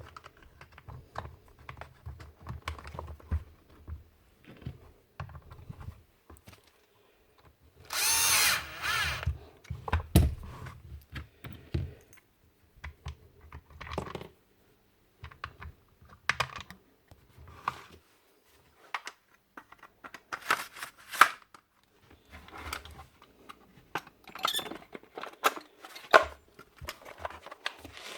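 A small electric motor whirring in short runs among clicks and knocks of parts being handled. The loudest run, about a third of the way in, rises in pitch as it spins up.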